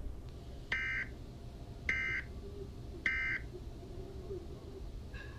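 Emergency Alert System end-of-message signal: three short, buzzy digital data bursts about a second apart, marking the close of the alert, followed by a fainter blip near the end.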